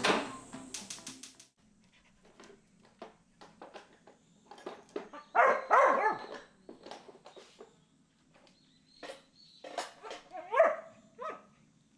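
A dog vocalising, with a burst of sound about halfway through and another pitched call near the end, among scattered small clicks.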